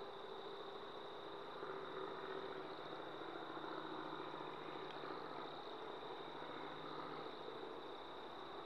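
Faint engine hum of an unseen vehicle, swelling for a few seconds and then fading. Under it is steady background hiss and a constant high-pitched whine.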